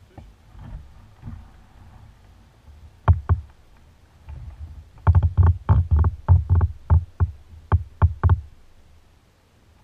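Kayak paddle knocking against the kayak's hollow hull: two sharp knocks about three seconds in, then a run of about a dozen quick knocks, roughly four a second, lasting about three seconds.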